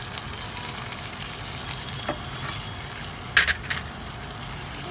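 Thick cream-and-cheese sauce sizzling steadily in a hot nonstick frying pan while a silicone spatula stirs it, with a few sharp clicks a little past three seconds in. Milk is poured into the sauce near the end.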